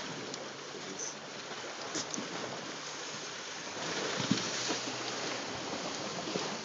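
Steady rush of wind and water lapping around a boat, growing louder a little past halfway, with one sharp click.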